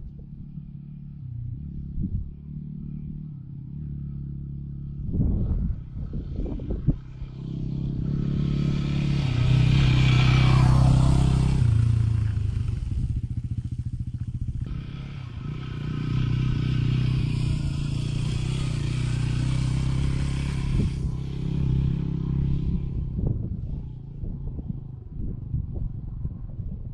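Yamaha WR250R's 250 cc single-cylinder four-stroke engine running. It runs low and steady at first, then gets louder as the bike pulls away, loudest about ten seconds in. It dips briefly, picks up again around sixteen seconds, and fades as it rides off near the end.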